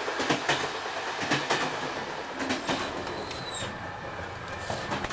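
Railway carriage in motion, heard from inside: a steady rattling rumble with irregular clacks and knocks from the wheels and car body, and a brief high squeal a little over three seconds in.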